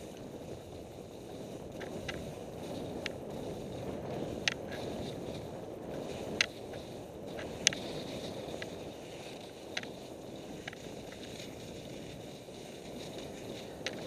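Backcountry skis hissing steadily as they slide down a packed-snow trail, with irregular sharp clicks every second or two.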